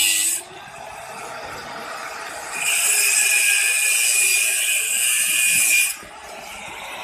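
Angle grinder with a thin cut-off disc cutting through 304 stainless steel rod: a high grinding screech that stops about half a second in, the grinder running quieter off the metal, then a second cut of about three seconds starting about two and a half seconds in.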